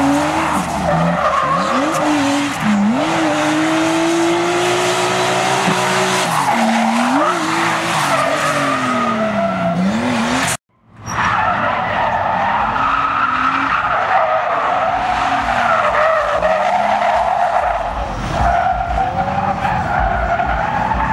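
Drift car engine revving up and down hard while the rear tyres squeal and skid through a smoky slide. The sound cuts out for a moment about halfway through, then more revving and tyre squeal follow.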